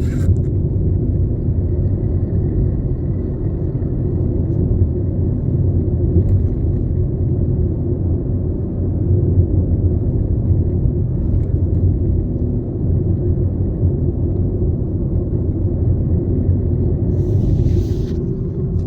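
Tata Altroz hatchback rolling on the road, heard from inside the cabin: a steady low rumble of tyres and road noise while coasting off the throttle, with no rattle standing out. A short rustle comes near the end.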